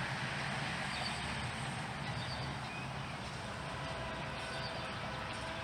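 Distant diesel locomotive of a short freight train approaching, a low steady rumble under outdoor background noise.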